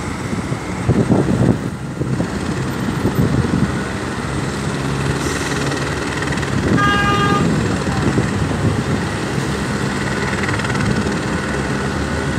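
Steady road traffic noise from slow, heavy expressway traffic, with engines running, and one short vehicle horn blast about seven seconds in.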